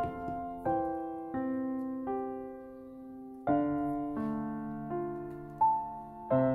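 Background piano music: a slow, gentle melody of single notes and chords struck steadily, under a second apart, each left to ring and fade.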